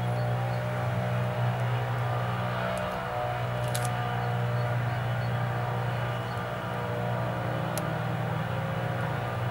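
Backpack leaf blower's engine running steadily with a low drone and a rush of air, blowing dust off the road surface.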